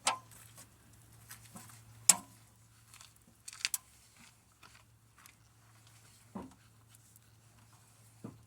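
Scattered knocks and clicks from wood blocks being handled and fitted under a car jack, about five over several seconds, with a faint low hum underneath.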